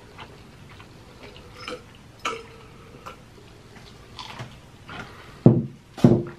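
Close-up eating sounds: chewing and crunching crispy fried chicken tenders, with scattered small clicks and mouth smacks, and two louder smacks near the end.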